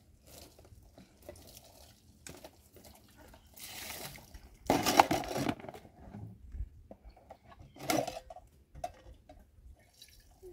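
Plastic basins and metal plates and bowls clattering and knocking as they are handled and stacked, with the loudest clatter about five seconds in and another sharp one near eight seconds.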